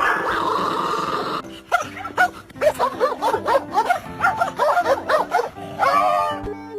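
A dog yipping and barking in quick repeated short yelps, each rising and falling in pitch, over background music.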